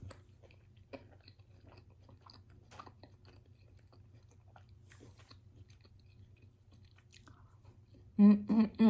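Close-up chewing of a chicken wrap: soft, wet mouth clicks and faint crunches. Near the end come a few short, louder hummed "mm" sounds.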